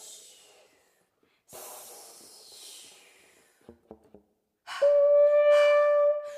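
A voice-and-trumpet duo playing contemporary music built on air sounds: two breathy rushes of air that fall in pitch and fade, a few short soft notes, then a loud high note held from near the end.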